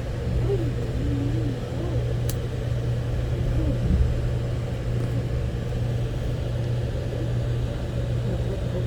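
Steady low hum and rumble of an Amtrak passenger train heard from on board, with faint voices murmuring underneath and a light click about two seconds in.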